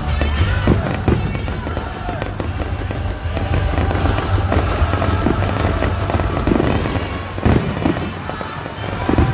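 Aerial fireworks shells bursting in a display, a string of booms and crackles at uneven intervals, with music playing underneath.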